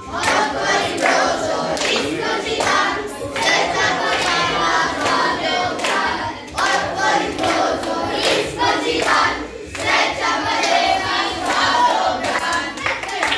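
A group of children singing a birthday song in chorus, with hands clapping along.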